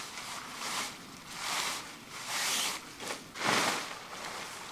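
A tarp rustling in a run of swishes as it is pulled from its bag and shaken open, the loudest and fullest swish about three and a half seconds in as it is swung out.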